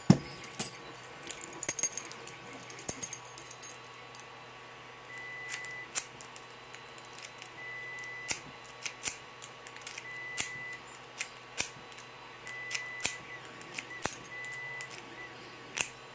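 Bogota pick being zipped in and out of a Lockwood 301 pin-tumbler padlock against a bottom-of-keyway tensioner: a run of irregular sharp metallic clicks, scrapes and small rattles as the pick rakes across the pins. A faint high tone comes and goes several times underneath.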